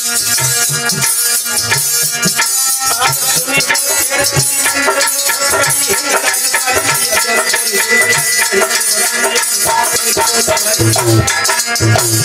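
Live Indian devotional hymn music: a harmonium playing with steady shaking percussion and low drum beats.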